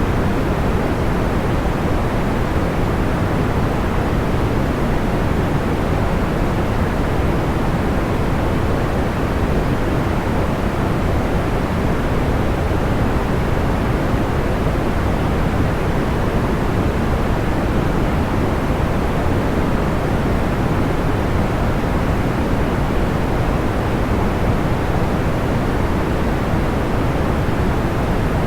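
Steady, even sleep-aid noise with a soft, deep rushing sound that does not change, and no crackles or pops in it.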